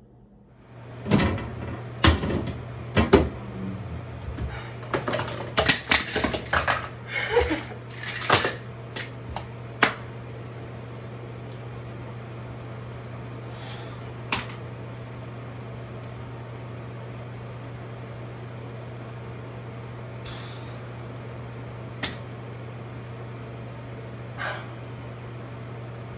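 Medicine cabinet door and toiletries clattering and knocking as they are handled, thick for the first ten seconds, then a few scattered clicks and short rustles as a toothpaste tube and toothbrush are picked up. A steady low hum runs underneath from about a second in.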